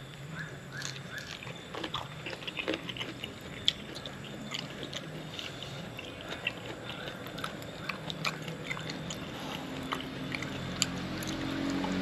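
A man chewing a mouthful of raw shrimp, with many small wet mouth clicks and smacks throughout.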